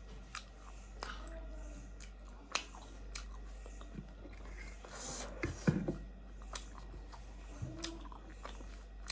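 A person chewing food close to the microphone, with scattered short clicks and a louder burst of mouth sounds a little past the middle.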